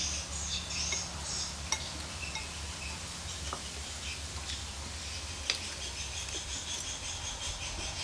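Light clinks of spoons against ceramic bowls and plates while eating, a few scattered clicks over a steady low hum, with faint high-pitched twittering in the background.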